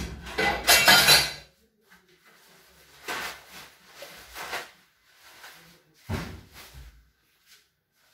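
Dishes and metal kitchenware clattering and clinking as they are handled at a kitchen sink, in irregular bursts: a loud clatter at the start, more clattering around three to four and a half seconds in, and a sharp knock about six seconds in.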